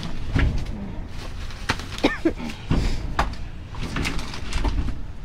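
Trash being rummaged through in a dumpster: a scattered series of knocks, clunks and rustles as junk is moved about, with a short squeak about two seconds in, over a low rumble.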